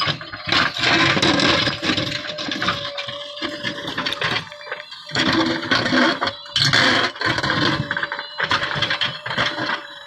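JCB 3DX backhoe loader at work: its diesel engine running under load while the backhoe bucket digs and drags through stony soil, rocks scraping and clattering in loud bursts. A steady whine runs underneath.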